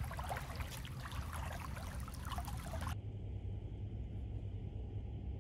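Pool water splashing and lapping around a person swimming with a dog. It cuts off abruptly about three seconds in, leaving a low steady hum.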